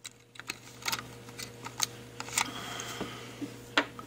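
Sharp plastic clicks and taps from a battery being worked out of a wireless mouse's battery compartment and the plastic mouse body being handled. There are about half a dozen clicks, the loudest near the end.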